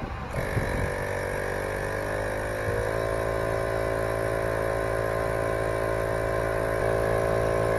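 VIAIR 450p-RV portable 12-volt air compressor kicking in and running steadily under load, pumping a heavy motorhome steer tire above 110 psi toward 130 psi. Its pitch rises a little over the first few seconds, then holds steady.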